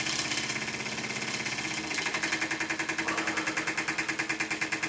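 Microcosm M1 double-acting model marine steam engine running slowly on low boiler pressure: a fast, even beat of steam exhaust puffs and mechanical clatter, about six a second, becoming more distinct about two seconds in.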